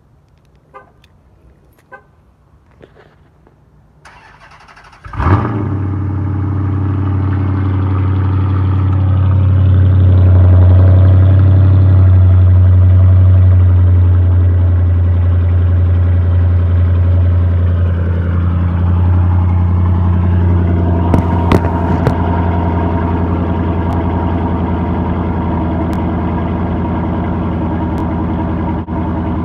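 A 2014 Dodge Charger R/T's 5.7-litre Hemi V8 with the mufflers and resonators removed, cold-started. The starter cranks about four seconds in and the engine catches loudly a second later. It then runs at a fast cold idle that settles to a lower idle after about a dozen seconds. A few faint clicks come before the start.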